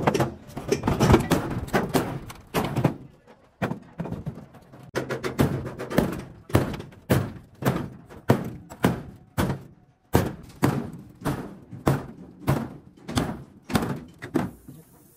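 Repeated hammer blows, about two strikes a second, with a short pause a few seconds in.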